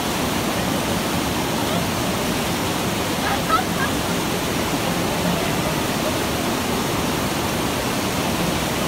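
River water rushing and pouring over a bamboo fish weir, a steady loud rush of falling water.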